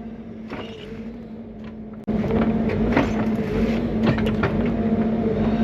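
Bobcat E55 mini excavator's diesel engine running steadily. About two seconds in it becomes suddenly louder, with scattered knocks and clatter over the engine.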